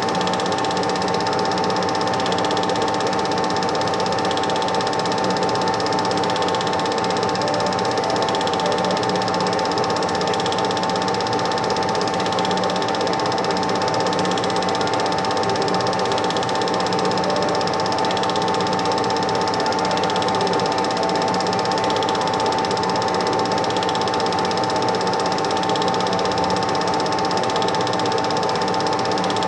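Super 8 film projector running steadily: the even whirr and rapid clatter of its film-advance mechanism, with a constant high tone.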